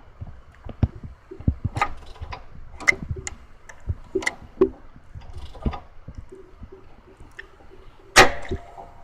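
Mercedes-Benz M270 four-cylinder engine with irregular clicks and knocks over a low rumble, and one louder knock near the end. This is the abnormal start-up noise that the owner suspects comes from a structural defect in the cam adjuster, needing a new cam sprocket with built-in adjuster.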